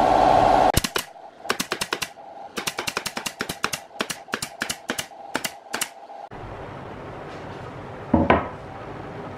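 A loud steady pitched hum cuts off just under a second in. Then a pneumatic nail gun fires rapidly, about twenty sharp clicks in quick runs over some five seconds, driving nails into plywood. After that comes a steady hiss, with one dull thump near the end.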